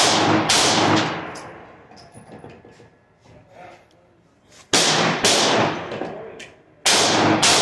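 Gunshots at an indoor range, fired in quick pairs about half a second apart: three shots right at the start, two about five seconds in, and two near the end. Each shot rings on in the room.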